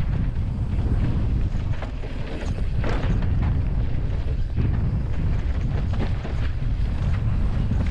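Wind buffeting a GoPro Hero 12's microphone on a fast mountain-bike descent, a steady low rumble, with scattered crunches and rattles from the tyres and bike over loose, dusty dirt.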